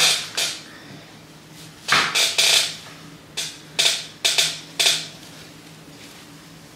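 A synthetic braided wig handled and shaken, its braids swishing and brushing together in a series of short quick sweeps, several in quick succession about two seconds in and more between three and five seconds.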